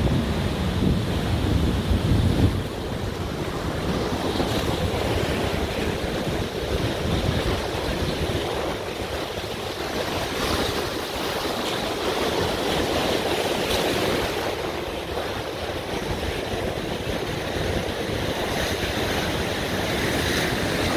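Rough sea surf crashing on rocks and washing through them in foam, a steady rush of water, with wind blowing on the microphone.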